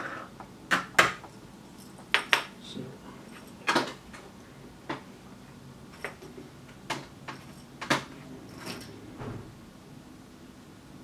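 Light metallic clicks and taps, about a dozen at irregular intervals, the loudest about a second in, as a soldering iron is worked over circuit-board joints held in a metal helping-hands clamp to reflow them.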